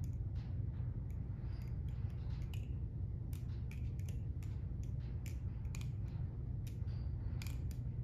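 Hazetac Devil balisong with titanium handles on bushings being flipped: irregular metallic clicks and clacks as the handles swing around the blade and knock together, over a steady low hum.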